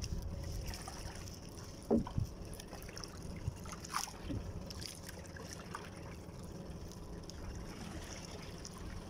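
Small outrigger canoe being paddled: water splashing and lapping as the paddle strokes, with a couple of louder strokes about two and four seconds in.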